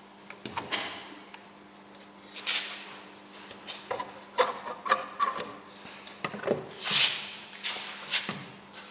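Hand-work noises while fitting a headlight ring: a series of scrapes and rubs with small clicks and knocks of parts and screws being handled, over a faint steady hum.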